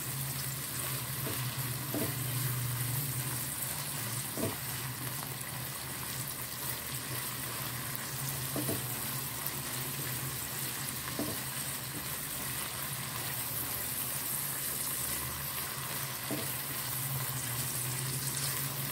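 Minced chicken frying in hot oil in a pan, a steady sizzle, with a few faint scrapes of a silicone spatula stirring it.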